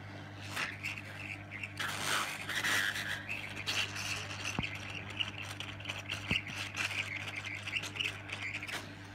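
Hot air rework gun blowing onto a circuit board to melt solder paste under an SMD capacitor: an uneven hiss of air over a steady low hum, with scraping noises that are strongest in the first few seconds.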